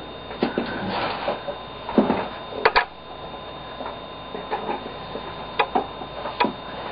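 Loose plastic 3x3 puzzle-cube pieces clicking and rattling as they are handled, with scattered sharp taps and some rustling, over a steady faint electrical hum.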